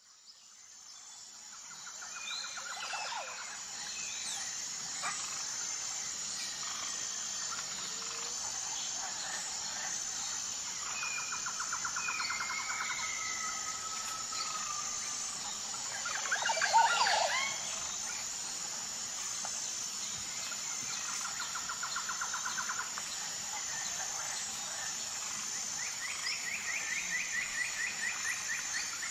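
Nature ambience: birds calling and trilling over a steady high-pitched insect chorus, fading in over the first couple of seconds, with one louder burst of calls about two-thirds of the way through.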